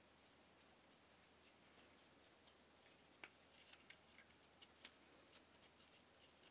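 Faint scratching and small clicks from scrubbing inside a Gen 4 Glock 17's polymer frame and handling it during cleaning, sparse at first and more frequent after about three seconds.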